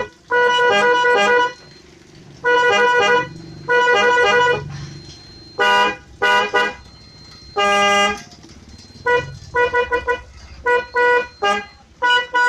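Snail-type telolet horn sounding a run of melodic multi-tone toots. The first blasts are each held about a second, then shorter ones come, shifting in pitch, and near the end a quick patter of short toots.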